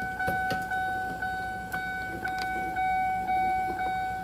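A car's electronic warning chime sounding as one steady tone that pulses about twice a second, with a few faint clicks of handling in the door.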